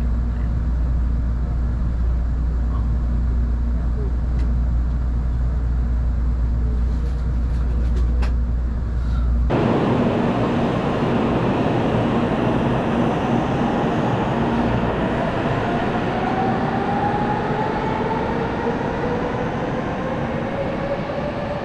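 A steady low rumble for the first nine seconds or so. Then a Kyushu–West Japan N700-series Shinkansen pulling out: its electric traction motors give a whine in two tones that rises slowly in pitch as it gathers speed, over the noise of the running train.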